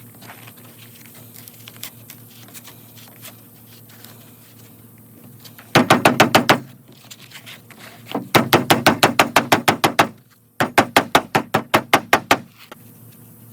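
Horseweed hand-drill spindle spun back and forth between the palms on a cardboard fireboard, giving quick, even rubbing strokes about seven a second. It comes in three bouts: a short one about six seconds in, then a longer one, then a third after a brief pause.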